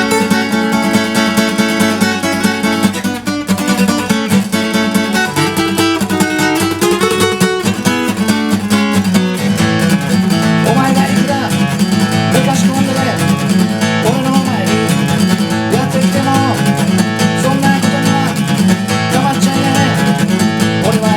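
Solo acoustic guitar playing an instrumental break between sung verses: fast, steady strumming with single-note lead lines played over it from about halfway through.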